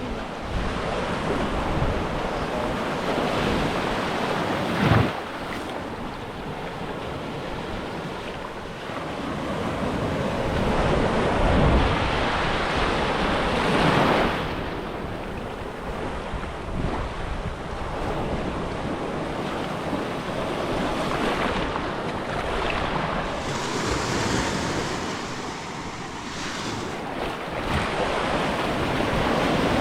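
Ocean surf washing onto a beach, swelling and easing wave by wave, with wind buffeting the microphone and a brief sharp knock about five seconds in.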